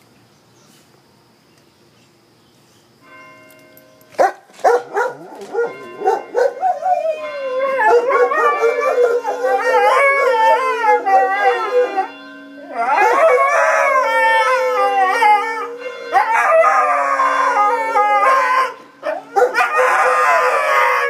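Dogs howling along to music, their long wavering howls rising and falling over a steady held chord. The howling starts about four seconds in, after a quiet start, and breaks off briefly twice.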